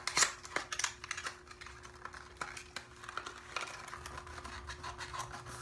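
A small cardboard box being opened by hand: its flap and packaging crinkling and clicking in irregular little bursts, sharpest about a quarter second in.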